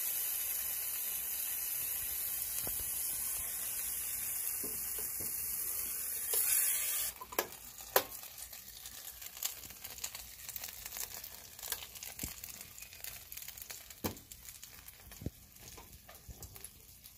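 Filled tortillas sizzling on an electric contact grill: a loud steady hiss that drops suddenly about seven seconds in to a quieter crackling with scattered pops. A sharp knock comes about a second after the drop.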